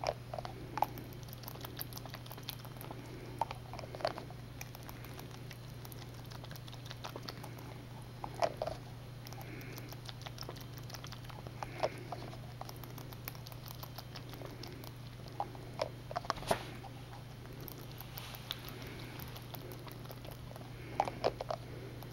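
Three-month-old jackrabbit suckling milk from a feeding bottle: soft, irregular wet smacks and clicks of its mouth working the nipple, coming in small clusters. A steady low hum runs underneath.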